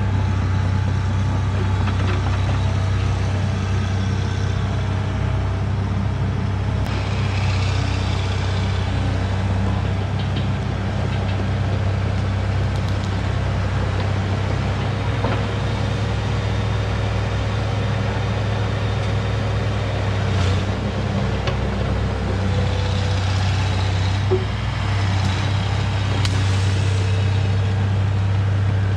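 Diesel engine of heavy earth-moving equipment, a bulldozer or excavator, running steadily at work. Stretches of higher scraping noise come in about seven seconds in and again near the end.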